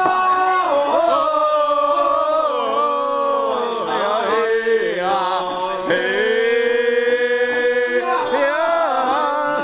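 Traditional Sakizaya ritual chanting: sung voices holding long notes that waver and slide between pitches.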